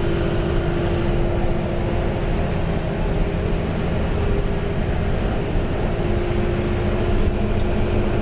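Bus running along the road, heard from inside the cabin: a steady engine and road rumble with a constant low hum over it.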